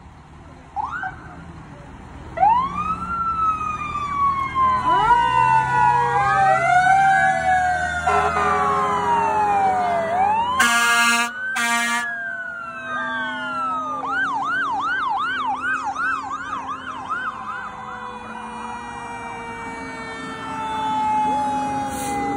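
Fire engine sirens from several passing trucks, wailing up and down over one another, with a fast yelp near the middle. Two short horn blasts sound about eleven seconds in, and truck engines run underneath.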